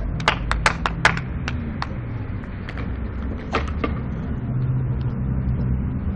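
Skateboard clicks and knocks on concrete: a quick string in the first second and a few more later, over a steady low rumble.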